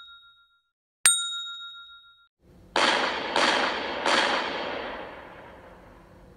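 Video-outro sound effects: a single bright ding that rings out about a second in, then three noisy hits in quick succession, each fading out slowly over a couple of seconds.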